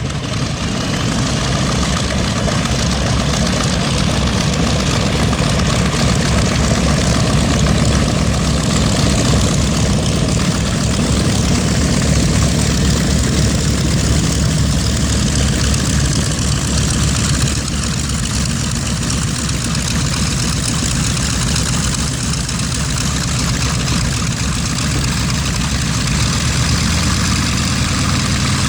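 A B-25 Mitchell bomber's twin Wright R-2600 radial engines running steadily with a deep, pulsing note; the level drops slightly about two-thirds of the way through.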